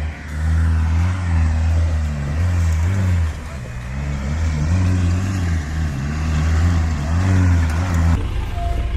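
A 4x4 pickup's engine working hard under load on a steep climb, its pitch rising and falling in surges as the throttle is worked. Near the end it cuts abruptly to a rougher engine sound of another vehicle.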